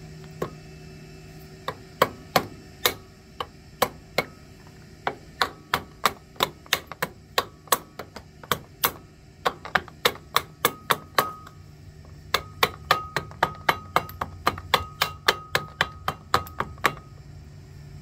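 Hammer tapping the planetary gear carrier onto its shaft in a Massey Ferguson 461 front-wheel hub: a long run of sharp metallic taps. They come a few at a time at first, then settle into a steady two or three a second, many of the later ones ringing briefly.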